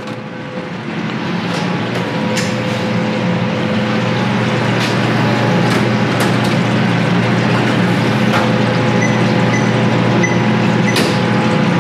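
Steady, loud hum and rush of commercial kitchen machinery such as fans and motors, growing louder over the first few seconds. A few sharp knocks and clatters of a metal sheet tray and rack being slid into a food holding cabinet.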